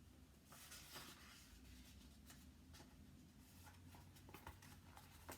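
Near silence with room tone: a faint rustle about half a second in, then a few soft clicks.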